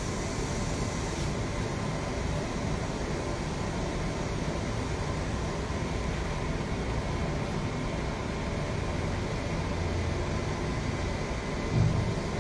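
Steady background hum and hiss with no distinct events, and one short low sound near the end.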